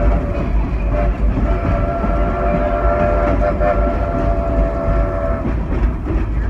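Steam locomotive's chime whistle: a short toot, then a long steady blast of about four and a half seconds, over the continuous rumble of the moving train.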